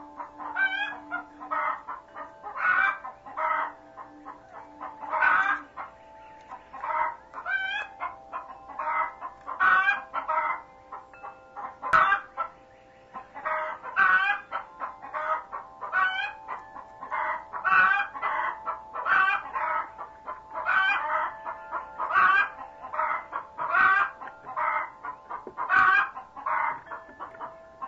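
Chickens clucking and calling over and over, a short call about every second, with a faint steady hum underneath.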